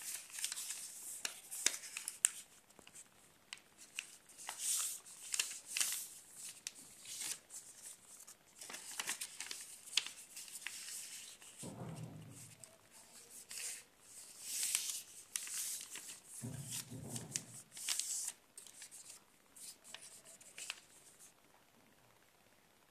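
A sheet of paper folded and creased by hand, rustling and crinkling in irregular bursts with sharp crackles as each fold is pressed flat. Twice, around the middle, a brief low sound comes in.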